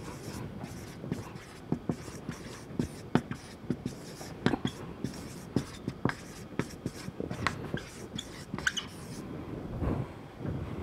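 Felt-tip marker writing on a whiteboard: a run of short, irregular taps and squeaky scratches as each letter is stroked out, stopping about nine seconds in.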